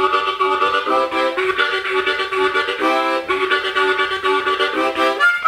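Harmonica played in a rhythmic chugging pattern of repeated chords, imitating a steam train running along.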